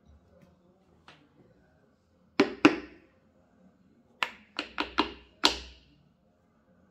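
Sharp hand-tool taps on engine parts while pistons and rods are fitted into the block: two close together, then a quick run of five.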